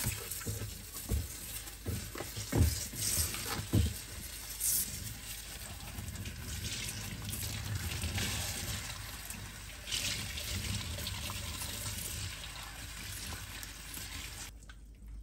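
Kitchen faucet running into a stainless steel sink as whole red snapper are rinsed and handled under the stream, with water splashing off the fish and foam tray. There are several knocks in the first few seconds, and the running water cuts off near the end.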